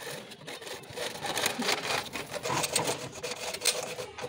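Hacksaw blade sawing through a plastic water pipe in quick back-and-forth strokes, growing louder about a second in.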